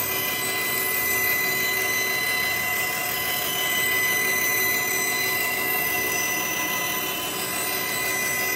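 Bandsaw running and cutting along an oak board fed through on a sled, ripping a straight edge with a rough blade. A steady, even machine noise with a thin constant high tone.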